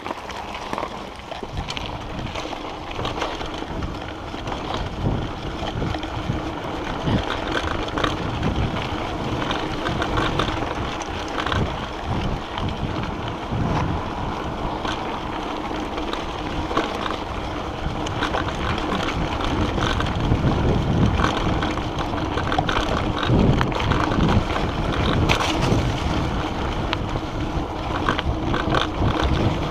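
Mountain bike riding down a dirt and gravel trail: wind buffeting the microphone, tyres rolling over the dirt, and the bike rattling with frequent knocks over bumps.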